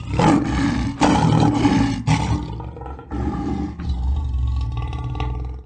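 Lion roaring in a series of loud, rough calls that come in surges about a second apart, with a brief lull midway, then stops abruptly.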